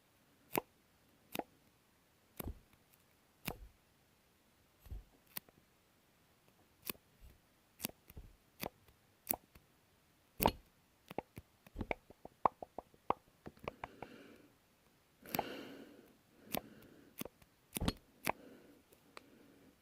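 Sticky pops: something tacky peeling apart in sharp snaps, about one a second at first, then a quick run of smaller clicks. A brief brushing sound comes about three-quarters of the way through, followed by a few more pops.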